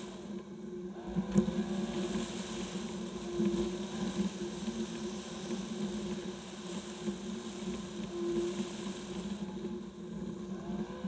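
Jaguar XK's V8 engine running at a steady drone while the car drives along city streets, with road and wind noise, heard from a camera mounted on the car's flank.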